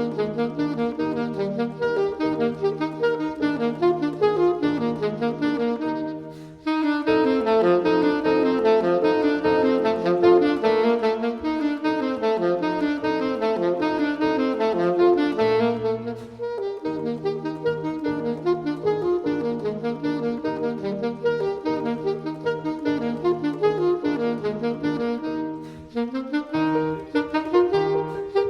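Classical saxophone playing a melody over piano accompaniment, with short breaks between phrases about six seconds in and again near the end.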